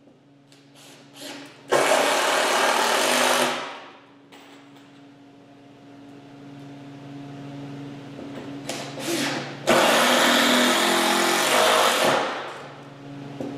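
Cordless drill running in two long bursts of about two seconds each, with a few short spins before them.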